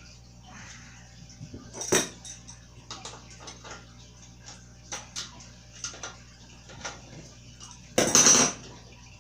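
Metal bike parts and tools clinking and clattering while training wheels are fitted to a toddler bike. There is a sharp clink about two seconds in, then scattered light clicks, and a louder rattling clatter near the end.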